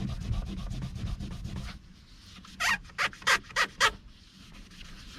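Old tape adhesive, softened with Goo Gone, being scraped off a car door in quick back-and-forth strokes, several a second. About two and a half seconds in come five harder, louder scrapes, then lighter rubbing.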